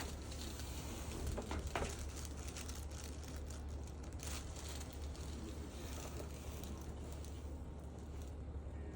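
Faint rustling and scraping of handling and movement, a few soft rustles over a steady low hum.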